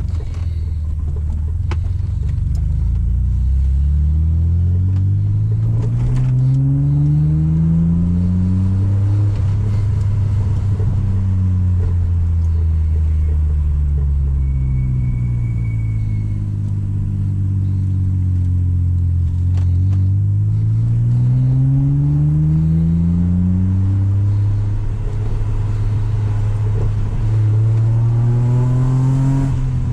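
BMW E36 320i inline-six engine with no catalytic converters, heard while driving. The revs climb steadily for several seconds and then drop sharply. Through the middle the revs slowly fall. Later come two more rising pulls, each ending in a sudden drop.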